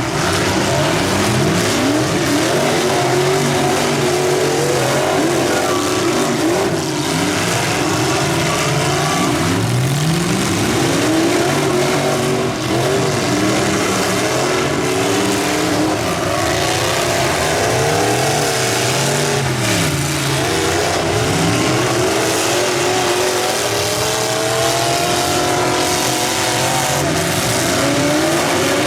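Several demolition derby cars' engines revving hard at once, their pitches rising and falling over each other without a break, with a few short bangs scattered through.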